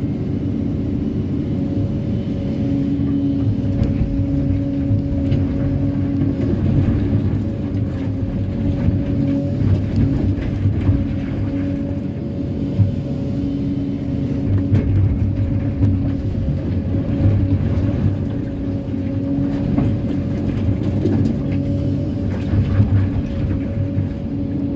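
Kobelco SK330-10 crawler excavator's diesel engine and hydraulics running steadily under load, heard from inside the cab, with a steady drone and a whine that rises and drops back in stretches as the boom and bucket move. Scattered faint knocks run through it.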